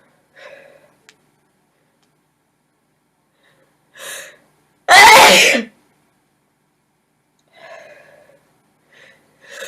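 A woman sneezing once, loudly, about five seconds in, after a short breath in about a second before; faint breathing around it.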